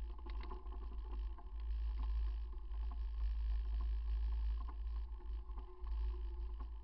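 Wind buffeting and road vibration rumbling on a bicycle-mounted camera's microphone while riding, with scattered small rattling clicks.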